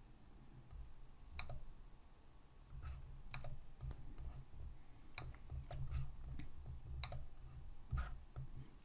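Computer mouse clicks: about half a dozen sharp single clicks, a second or two apart, over a faint low rumble.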